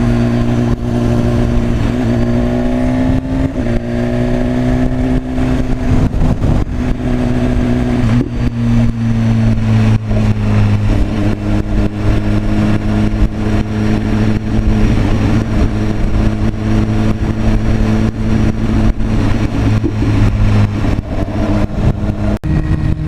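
BMW S1000RR inline-four engine running at a steady cruise, its note shifting in pitch a few times with throttle or gear changes.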